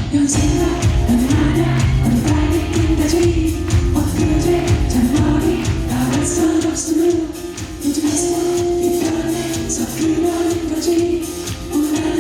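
Live pop band playing a song's introduction with a steady beat and a melody line, with singing heard over it.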